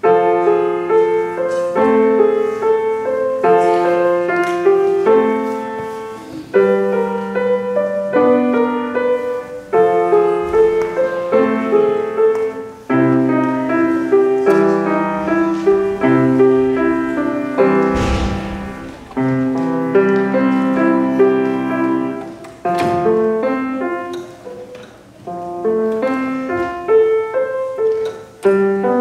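Grand piano played solo: a piece in phrases of held low accompaniment notes under a higher melody, with short breaks between phrases.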